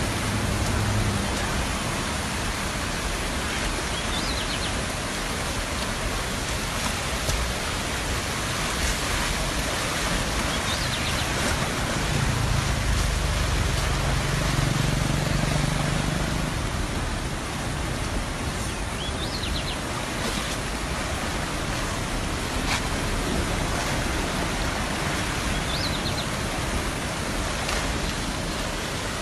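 Muddy floodwater rushing past in a steady, even rush of noise, with a few faint short high chirps every several seconds.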